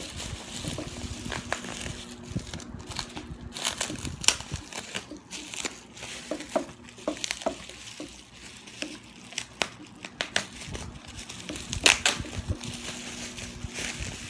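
Packaging crinkling and rustling as it is handled and unwrapped, with irregular crackles and sharp clicks throughout.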